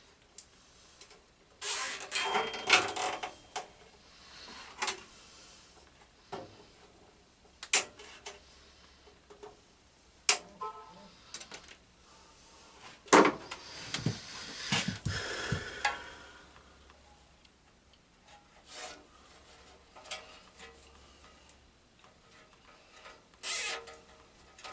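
Nylon cable ties rasping through their ratchets and wiring being handled, with rubbing, scraping and scattered sharp clicks; the longest rasping stretches come a couple of seconds in and about two thirds of the way through.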